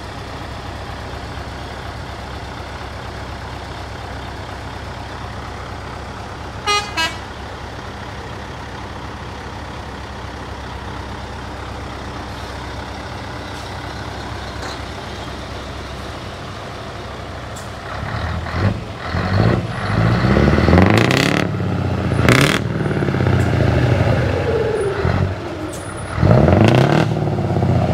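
Heavy trucks arriving in a convoy: a steady low engine rumble with two short horn toots about seven seconds in. From about eighteen seconds in, trucks pass close and loud, their engines rising and falling in pitch, with a few short, sharp blasts.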